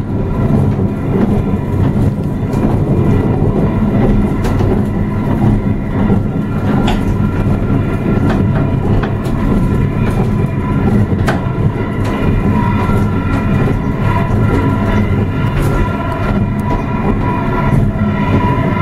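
Ascensor El Peral funicular car running on its rails: a steady rumble with a faint whine that grows stronger partway through, and scattered sharp clicks.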